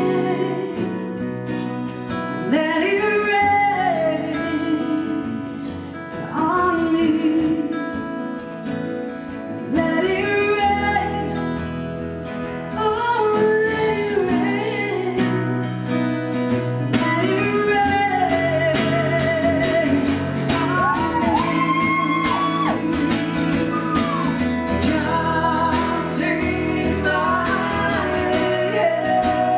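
A woman singing a slow song while strumming her acoustic guitar, in phrases with short breaks, some long held notes sung with vibrato.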